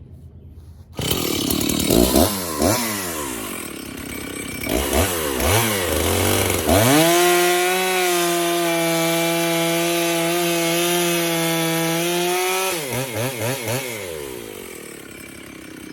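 64 cc two-stroke chainsaw revved up and down a few times, then held at a steady high speed for about six seconds while cutting a poplar log with a freshly hand-sharpened chain. It drops back toward idle near the end.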